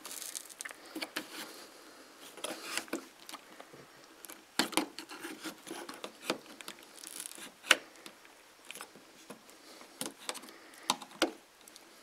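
Knife blade and screwdriver scraping and clicking against the edge of a plastic wall switch plate, the knife working at the glue behind it, which is not cutting. Irregular light scrapes and sharp ticks, a few of them louder.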